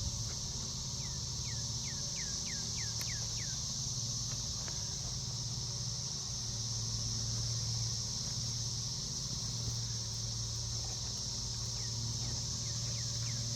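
Steady outdoor drone of insects, like crickets, with a low steady hum beneath it. Near the start comes a quick run of about eight short falling chirps.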